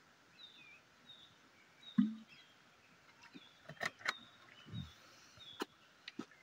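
Birds chirping, short repeated calls, with a few sharp clicks between about four and six seconds in and a dull thump about two seconds in.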